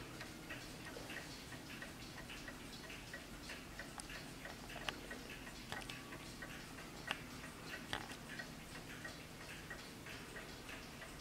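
Junghans mantel clock's movement ticking steadily, the freshly serviced escapement beating in an even rhythm. A few louder clicks stand out about halfway through.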